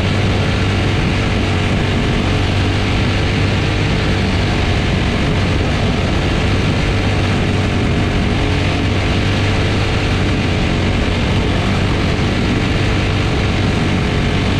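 Quarter midget race car's single-cylinder Briggs & Stratton Animal engine running under power around the oval, heard onboard, holding a nearly steady pitch throughout.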